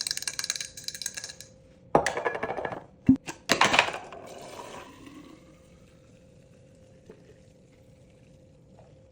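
Metallic clinking and jingling for about a second and a half, then two short clatters with a sharp knock between them as objects are handled, followed by a faint steady hum.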